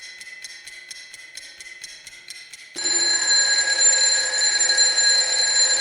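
Electronic broadcast intro jingle: quick, even clock-like ticking, about five ticks a second, over faint high tones, then about three seconds in a loud held electronic chord that sustains to the end.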